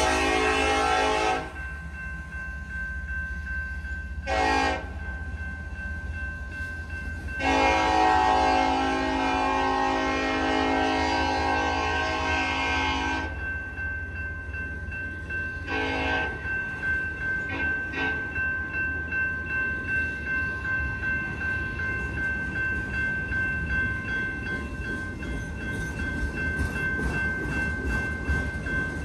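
Freight locomotive air horn sounding from the passed lead units: a long blast at the start, a short one about four seconds in, a long blast of about six seconds, then a short one. Under it the freight cars roll past with a low rumble and a faint steady whine, and in the second half a regular clacking of wheels over rail joints comes about once a second.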